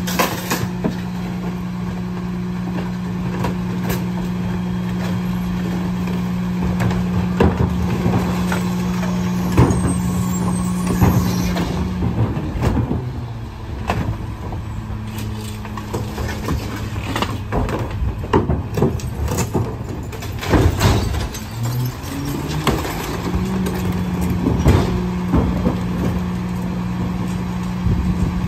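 Garbage truck's diesel engine running at held-up revs, with repeated knocks and clatters of trash being loaded and packed. About halfway through the engine note drops and changes, then climbs back up and holds steady again near the end.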